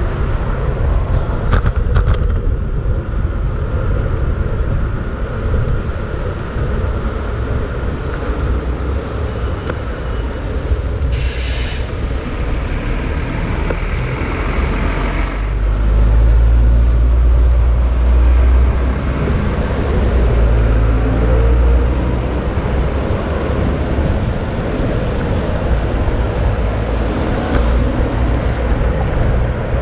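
City road traffic heard from a moving bicycle, with a heavy low rumble throughout that is strongest from about sixteen to twenty-two seconds in. A loud hiss starts abruptly about eleven seconds in and lasts about four seconds.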